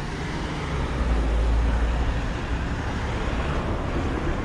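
Road traffic: a motor vehicle passing close, with a low rumble that swells about a second in and fades again.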